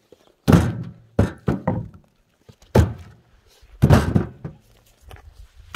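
Heavy wooden thuds, about six at uneven intervals, from split firewood logs being dropped onto a pile.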